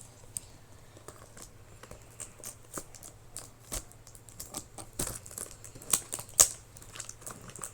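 Sticky tape being peeled off a cardboard toy box, with crackling and tearing sounds that come irregularly and grow thicker about five seconds in.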